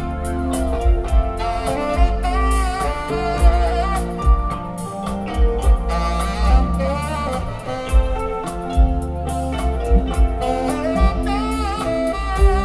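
Live rock band with an amplified tenor saxophone playing a solo line over electric guitar, bass and a drum kit keeping a steady beat.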